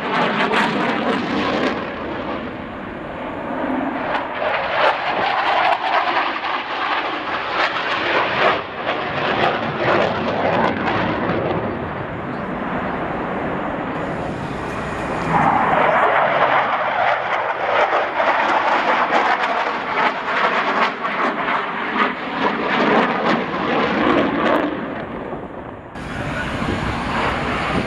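Fighter jet engine noise from a flying display, a loud rushing roar that swells and fades as the jet passes, broken by abrupt changes where the recording is cut.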